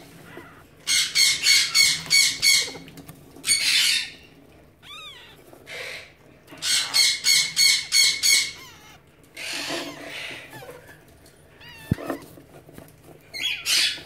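Alexandrine parakeet squawking in two fast runs of short harsh calls, about seven a second, each run lasting about two seconds. Softer single calls come between the runs.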